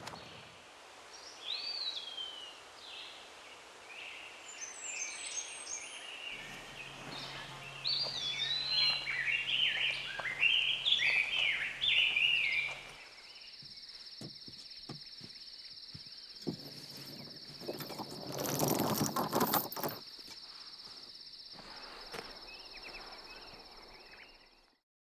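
Birds singing and calling with many short chirps, over a faint low hum that joins a few seconds in. About halfway the sound changes abruptly to a steady high-pitched buzz, with a louder rush of noise for about two seconds partway through, and everything cuts off just before the end.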